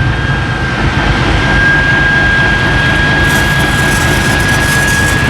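Diesel locomotive running close by: loud engine rumble under a steady high whine.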